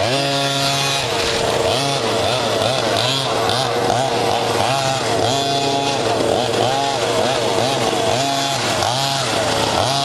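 Small two-stroke gas engine of a large-scale RC truck, revved up and down over and over as the truck drives. A steady engine note holds underneath throughout.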